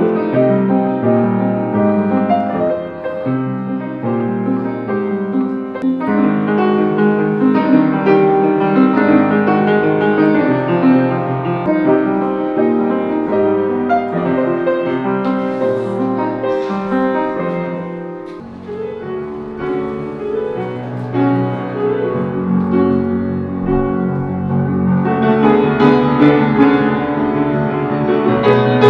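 Piano music: a continuous run of played notes and chords, dipping quieter about 18 seconds in and growing fuller near the end.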